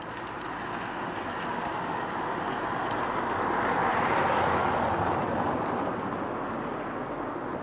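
A passing vehicle: a broad rushing noise that swells to its loudest about four seconds in and then fades.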